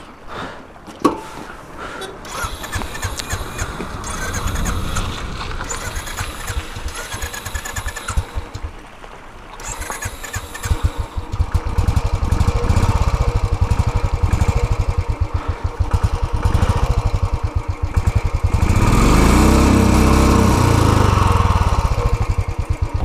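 Royal Enfield motorcycle's single-cylinder engine being started, catching about halfway in and then running with a fast, even thump. It is revved up and back down once near the end.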